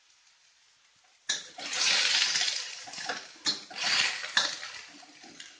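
A little water poured into a hot wok of stir-fried bamboo shoots about a second in, setting off a loud hissing sizzle that swells and fades in waves as a spatula stirs, with a few sharp knocks of the spatula against the wok.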